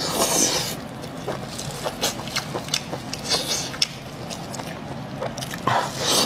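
Close-miked eating of spicy braised sheep intestine: wet chewing and biting with many small clicks. Plastic-gloved hands squelch as they tear the sauce-covered offal apart. The loudest wet bursts come at the start and near the end.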